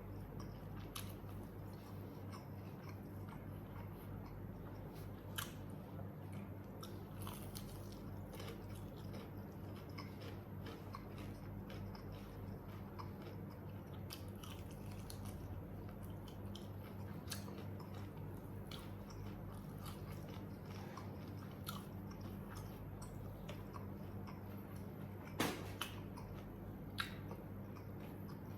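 A person chewing and biting crispy smashed fried chicken close to the microphone, with scattered sharp crunches and clicks, the loudest a little before the end. A steady low hum runs underneath.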